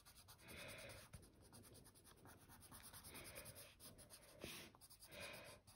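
Coloured pencil shading on paper: faint strokes, several in a row with short pauses between them.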